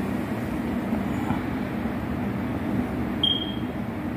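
Steady low background rumble, with a short high tone about three seconds in.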